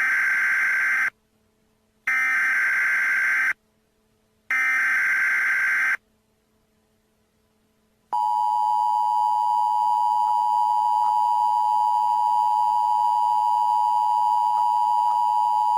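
Emergency Alert System broadcast tones: three bursts of SAME digital header data, each about a second and a half long with short gaps between them. About eight seconds in, the steady two-tone EAS attention signal (853 and 960 Hz) begins and holds.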